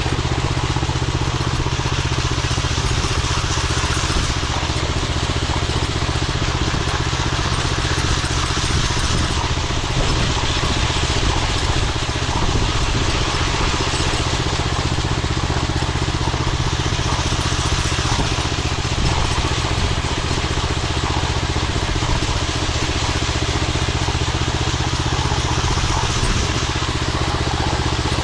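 Ride-on concrete power trowel running steadily, its gasoline engine at a constant speed with the blades turning on the slab during a finishing pass.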